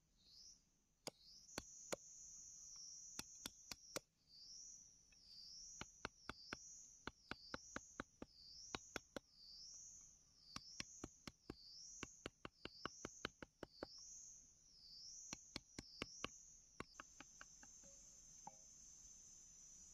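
Machete blade chopping and notching a bamboo stick against a wooden log: a long series of sharp knocks, often several in quick succession, stopping about three seconds before the end. Behind them an insect's high rising chirp repeats about once a second, turning into a steady high trill near the end.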